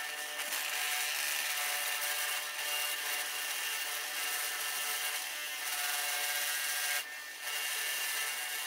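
Steel wire wheel on a bench grinder, spinning against a rusty ball peen hammer head and brushing off the rust: a steady whir and scrub that dips briefly about seven seconds in.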